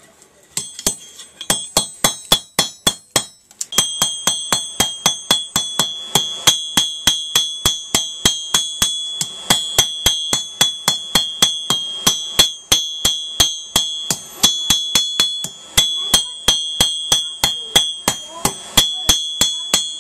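Blacksmith's hammer striking hot steel on an anvil in a steady run of blows, about three a second, each with a high ring from the anvil. The hammering breaks off briefly about three and a half seconds in, then carries on.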